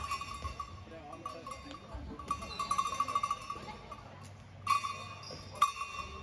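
Players' indoor court shoes squeaking on the sports-hall floor in short chirps, a quick run of them about halfway through, with two sharp knocks near the end.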